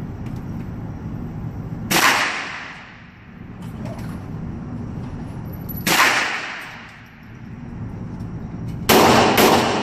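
Ruger SR40 .40 S&W pistol fired in an indoor range, each shot ringing out in the hard-walled room: a single shot about two seconds in, another about six seconds in, then several shots in quick succession near the end. A steady low hum runs underneath.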